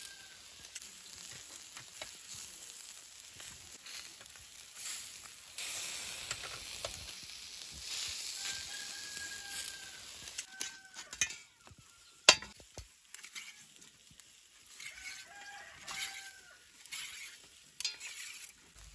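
Lamb kebabs on metal skewers sizzling over a charcoal grill, a steady hiss that is louder in the first half. A rooster crows several times in the background, and a few sharp clicks sound, the loudest about two-thirds of the way through.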